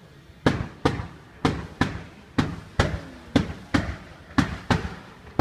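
Fireworks comets launching one after another: a rapid series of sharp launch thumps, about two a second, beginning about half a second in.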